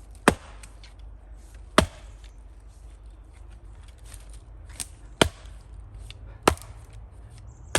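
Axe striking firewood rounds by hand: about five sharp, separate chops at uneven intervals, with a longer gap in the middle.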